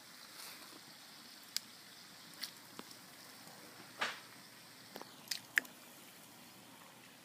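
Pieces of roasted red pepper dropped by hand into a cauldron of oil, landing with a handful of soft wet splats at uneven intervals. The loudest comes about four seconds in.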